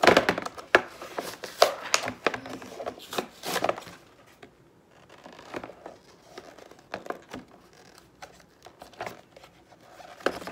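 Goggles' packaging crinkling and tearing as it is pulled open by hand: a dense run of loud crinkles and rips in the first four seconds, then quieter, scattered rustles.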